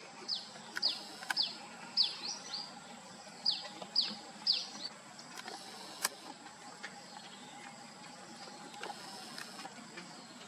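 A small bird calling: about seven sharp, high chirps, each sweeping quickly downward, over the first five seconds, then only faint scattered clicks. A steady thin high-pitched hum runs behind.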